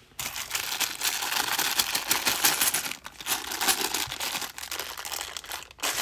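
Clear plastic bank bag of £2 coins crinkling as it is handled and opened by hand. It starts suddenly just after the beginning, with brief pauses about three seconds in and near the end.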